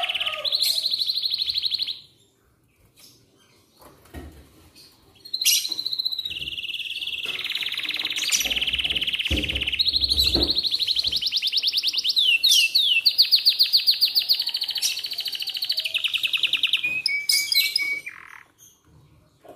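Domestic canary singing long rolling trills of fast repeated notes. It breaks off about two seconds in, then starts again with a long run of trills that changes pace and pitch, has a few quick swooping notes midway, and ends on a falling note near the end.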